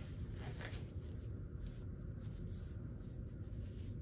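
Disposable gloves rustling and rubbing as they are pulled onto the hands, with a cluster of scratchy rubs about half a second in, over a steady low room hum.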